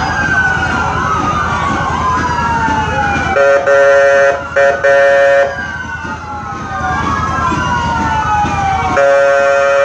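Several emergency-vehicle sirens wailing at once, their pitches slowly rising and falling and overlapping. A steady horn blast cuts in about three and a half seconds in, breaking briefly, and another starts near the end.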